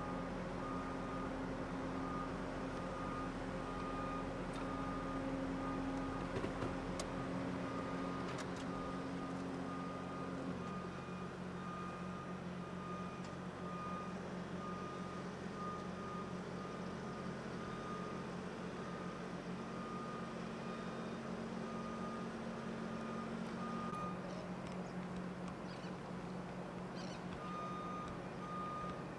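A vehicle's reversing alarm beeping steadily with a single high tone, stopping for a few seconds near the end and then starting again, over the low steady hum of an engine running.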